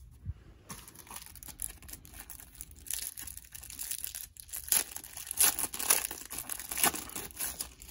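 Clear plastic wrapper of a trading-card pack being torn open and crinkled. The crackling grows louder and busier about three seconds in.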